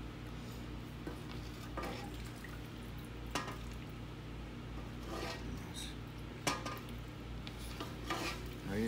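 A ladle knocking and scraping in a large aluminium stockpot as birria broth is ladled into a ceramic bowl: about five scattered clinks and knocks over a steady low hum.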